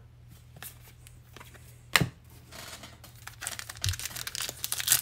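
Plastic foil wrapper of a 2021 Bowman baseball card pack being torn open and crinkled while the cards are pulled out. The crackling starts about halfway through, just after a single sharp click.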